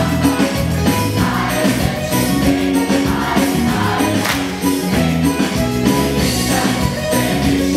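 Teenage choir singing together over music with a steady beat, with the singers clapping along.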